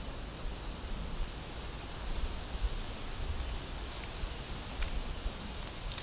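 Forest insects chirping in a high, steady pulse about twice a second, over a low rumble.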